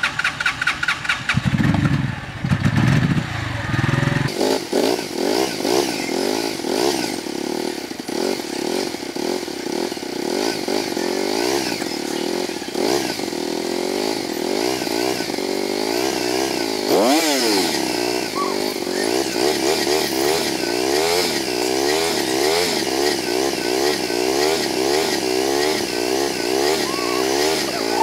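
Cruiser motorcycle engine running at idle with a balloon stretched over its exhaust silencer, the exhaust gas slowly inflating the balloon. About four seconds in, the exhaust note changes to a steady wavering tone that carries on, with one brief swoop in pitch later on.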